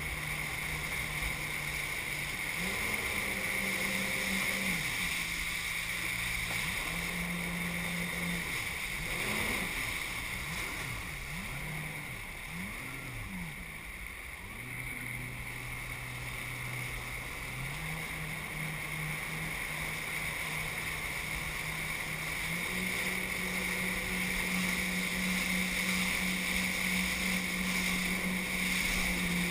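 Jet ski engine running under way. Its pitch swings up and down with the throttle through the middle, then holds steady and higher for the last part, with a steady high whine over it.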